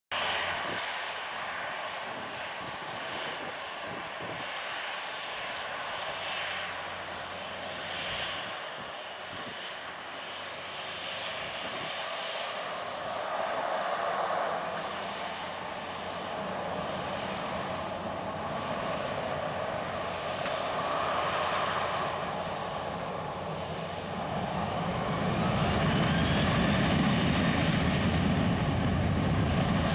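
Boeing 737-900's CFM56 turbofan engines running as the jet taxis past, with a steady high whine over the jet noise. About 25 seconds in it grows louder, with a deeper rumble and a whine that rises in pitch.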